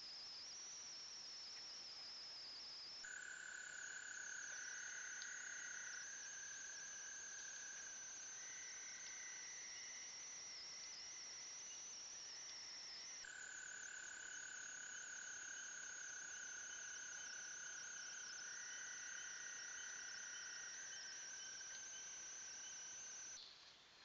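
Faint night chorus of insects and frogs: a steady high-pitched trilling throughout, with long, steady lower trills of several seconds each overlapping from about three seconds in. The chorus drops away abruptly near the end.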